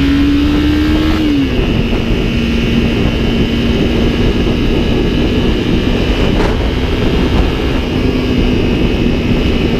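A vehicle motor running steadily at speed under heavy wind noise on the microphone. Its pitch climbs slightly, drops about a second in, then holds level.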